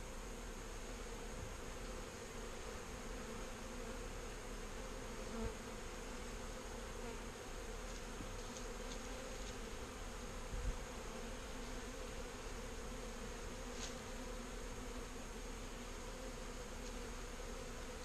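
Honeybees humming steadily around an open hive and a frame covered in bees. A couple of soft knocks come about five and ten seconds in.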